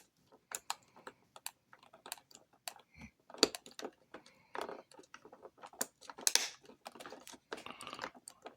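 Steel lock-pick rake scraping in and out of the keyway of a Schlage SecureKey deadbolt: a rapid, irregular run of small metallic clicks and scrapes as the pins are raked, with a soft knock about three seconds in. One pin stays unset and the lock does not open.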